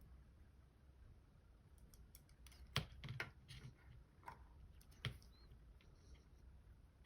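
Faint, scattered small metal clicks and taps of a gut wrench working at the C-clip on a lock's core, the sharpest about three seconds in and again about five seconds in.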